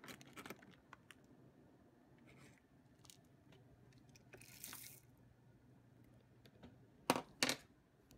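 Beeswax pellets being scooped from a plastic bag with a spoon and tipped into a glass measuring cup: faint crunching and crinkling, a brief rustle about halfway, then two sharp clicks about seven seconds in.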